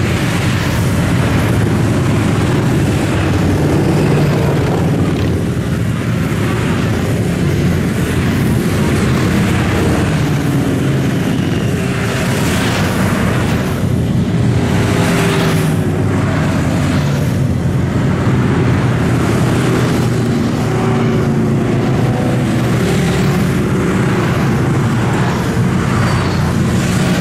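A steady stream of motorcycles riding past, their engines overlapping in a continuous drone, with a few louder bikes going by around the middle.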